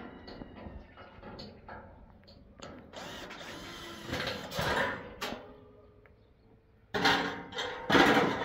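Power drill driving screws to fasten a roof sheet onto a steel frame, in short runs, with the loudest run near the end.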